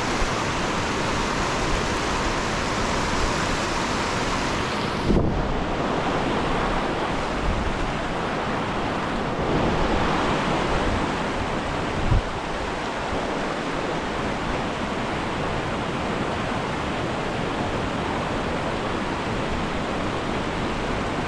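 Steady rushing of fast-flowing river water, with a couple of brief low thumps about five and twelve seconds in.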